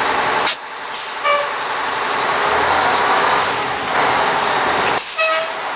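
Fire engine running, with a steady mechanical noise, briefly broken twice by two short beeps: about a second in and again near the end.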